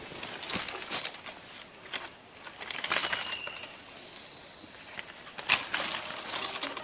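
Rustling of leaves and brush with scattered clicks and knocks as a hanging fishing line is pulled in by hand through bankside vegetation, with one sharp crack about five and a half seconds in.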